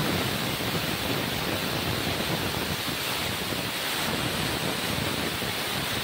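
Stovetop pressure cooker whistling: steam jetting out under its weight valve in a loud, steady hiss, the sign that the dal inside is cooking at full pressure.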